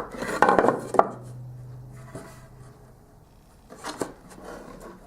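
Wooden workpieces being handled on a work table: a short clatter of knocks and scraping in the first second, then a couple more sharp wooden knocks near the four-second mark.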